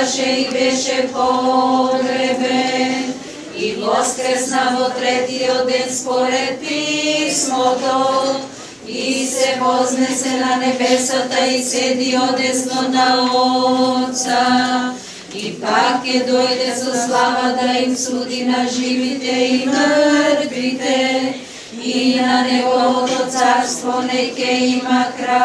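A group of voices singing an Orthodox liturgical chant a cappella, holding long notes in phrases that break briefly every five or six seconds.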